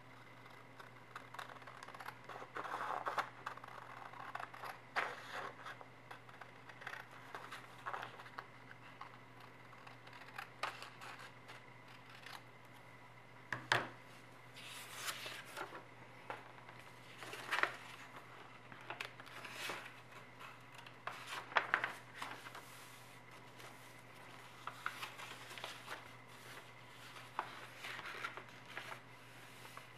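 Scissors cutting a sheet of 80 g/m² A4 paper along a fold, then the paper being handled and creased flat by hand, in scattered scratchy rustles. There is a sharp click about fourteen seconds in.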